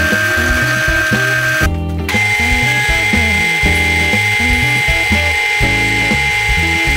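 Benchtop drill press running with a steady high whine as a small bit drills holes in thin plywood pieces, over background music with a bass line. The whine breaks off briefly about two seconds in and comes back at a higher pitch.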